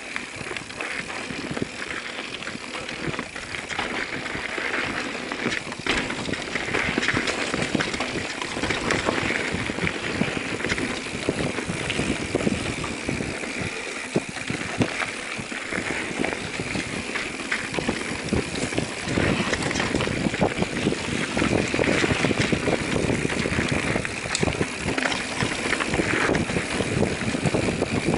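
Mountain bike rolling down a dirt singletrack: continuous tyre noise with constant rattling and clicking of the bike over roots and stones.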